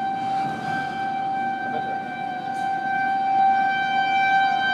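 Outdoor tornado warning siren sounding a steady, unwavering tone.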